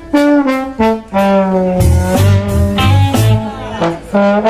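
Live blues-rock band jamming: a trombone plays a line of held and short notes over electric bass and drums.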